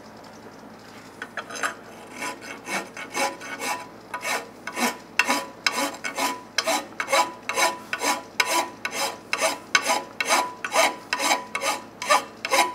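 An aggressive half-moon-toothed file for soft metals rasping across a TIG weld bead on cast aluminum, taking down the excess buildup. The strokes are quick and regular, about two a second, and start about a second in.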